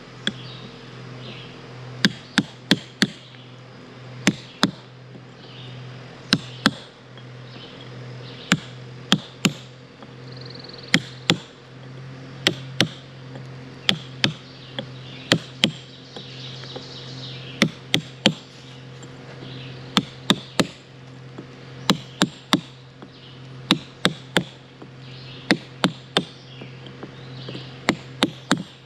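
Hammer striking a steel stone chisel held against a rock, sharp ringing hits coming singly or in quick runs of two to four with short pauses between, as the stone is worked to split it.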